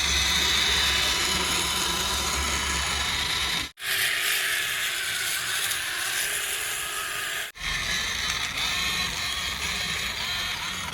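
Small electric motors and plastic gearboxes of toy RC construction vehicles running with a steady whirring grind, broken by hard cuts about every four seconds.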